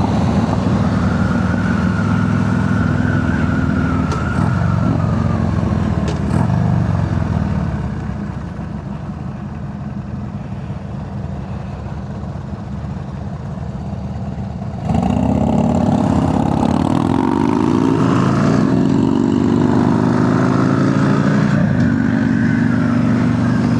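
Harley-Davidson Sportster's V-twin running through a new Cobra El Diablo 2-into-1 exhaust while being ridden. The engine note eases off and runs quieter for several seconds in the middle, then the throttle opens sharply about fifteen seconds in and the revs climb.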